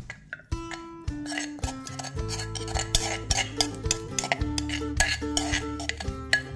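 A metal spoon and a wooden pestle clinking and scraping on a ceramic plate while a shredded salad is tossed. Background music with a melody and a bass line comes in about half a second in.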